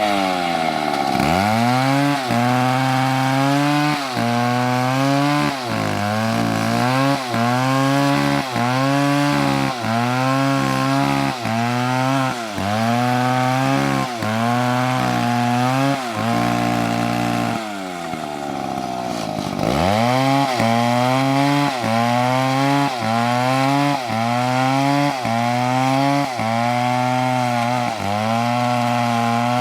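Two-stroke chainsaw cutting into wood at full throttle, the engine pitch dipping and recovering about once a second as the chain bites and eases. About eighteen seconds in it drops lower for a couple of seconds, then revs back up and carries on cutting.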